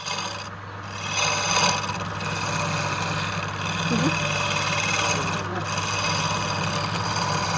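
Wood lathe running with a steady motor hum while a turning tool scrapes and cuts into the spinning wood.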